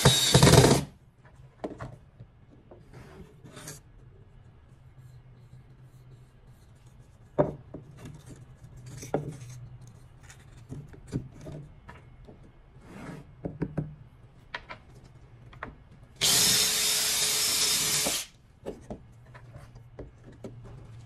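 Cordless drill/driver driving a wood screw into pine, stopping just under a second in. Then scattered light clicks and knocks of the wood blocks and screws being handled, a second run of the drill lasting about two seconds, and more handling clicks after it.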